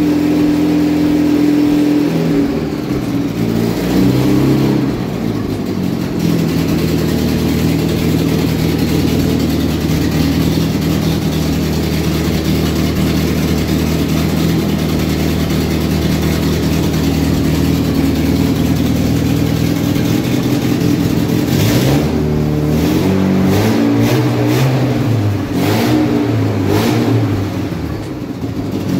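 Fiat 1.6 DOHC four-cylinder engine running on a newly fitted electronic ignition distributor that has only been roughly timed: revs held up at first, easing down over a few seconds to a steady idle, then blipped up and down several times near the end.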